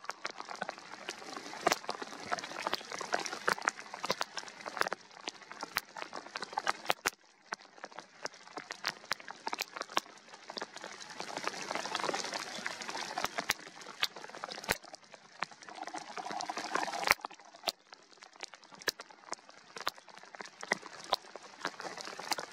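Rain: many sharp, irregular taps of drops over a soft hiss of rain on the water, the hiss swelling for a few seconds in the middle.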